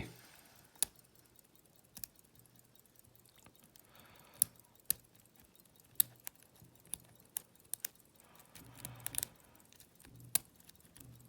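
Irregular sharp metallic clicks and ticks of lock-picking tools, pick and tension wrench, against an old all-brass Yale padlock, with faint rustles of handling between them.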